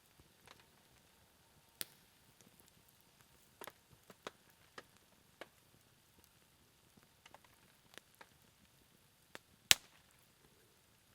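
A low, ember-like campfire crackling: sparse, irregular sharp pops and ticks, one much louder pop near the end, over a faint steady hiss.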